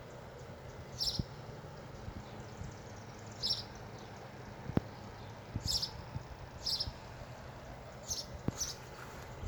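A small bird chirping outdoors: short, high chirps at irregular intervals, about six of them, over a faint steady low hum.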